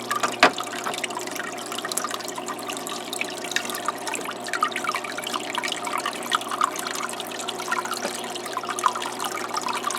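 Small aquarium waterfall trickling and splashing steadily as water runs off a stacked rock into the tank. A single sharp knock about half a second in.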